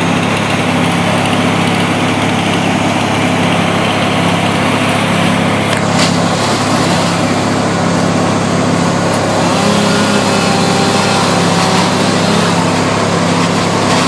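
Engine running at a steady idle, with no revving and one brief click about six seconds in.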